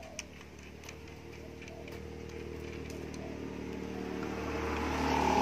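A motor vehicle's engine running at a steady pitch, growing louder as it approaches and loudest near the end. A few faint clicks early on.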